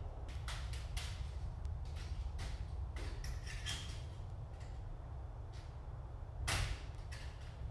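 A plastic T5 LED light fixture is handled and pushed up into its metal mounting clips on a ceiling, giving a series of short scrapes, clicks and small creaks. A louder scrape comes about six and a half seconds in.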